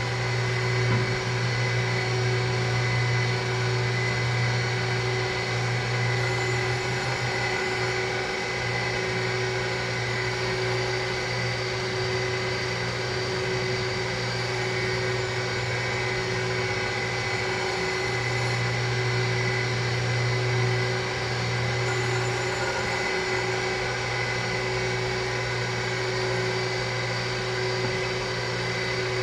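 Surface grinder running steadily while grinding in its magnetic chuck: a constant motor hum with steady whining tones above it, the low hum swelling and easing a few times.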